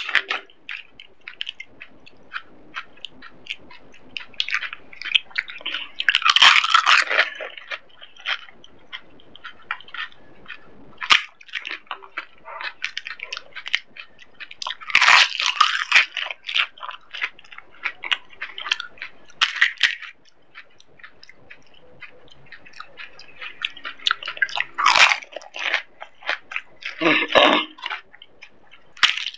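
Close-miked eating of pani puri: crisp hollow puris cracked open with the fingers and bitten whole, with wet chewing and small crackles throughout and four louder bursts of crunching.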